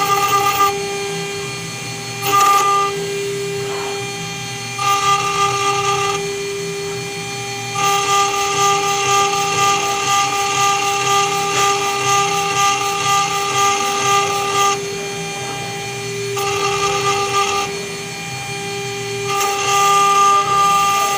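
CNC router spindle with a small engraving bit cutting into a brass plate: a steady whine made of several fixed tones. It swells into louder, brighter stretches of cutting several times, and in the longest stretch the level pulses about twice a second.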